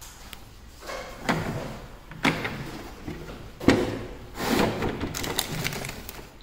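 Makita MAKPAC plastic tool case being opened, with three sharp clicks and knocks from its latches and lid in the first four seconds. Then a stretch of crinkly rustling as the paper manual and the plastic bags inside are handled.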